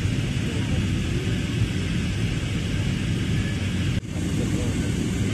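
Steady low rumble of a jet airliner's cabin in flight, the engines and rushing air heard from a window seat. It drops out for an instant about four seconds in.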